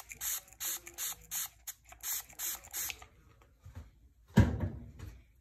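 Quick rhythmic hissing strokes, about three a second, from cleaning a hen's wound, stopping about three seconds in. About a second later comes a sudden loud thump, the loudest sound, which dies away within a second.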